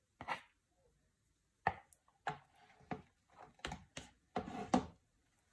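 A spoon and a silicone spatula knocking and scraping against mixing bowls as melted chocolate is scraped out of a plastic bowl and folded into whipped cream in a glass bowl: a series of short knocks and scrapes, the longest near the end.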